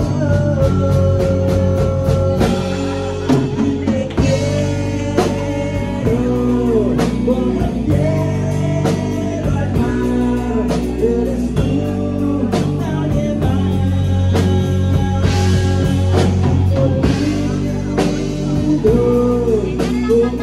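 Live rock band playing: electric guitars and bass guitar over a drum kit, with steady drum and cymbal hits and bending guitar lines.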